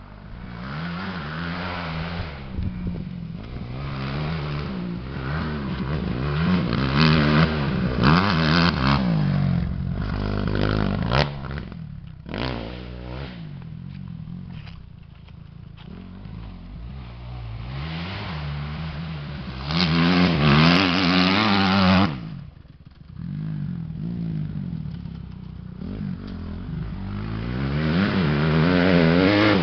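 Kawasaki 250 four-stroke motocross bike riding round a dirt track, its engine revving up and down as it accelerates and backs off, growing louder and fainter as it comes near and moves away. The revs drop off suddenly about two-thirds of the way through, then build again near the end.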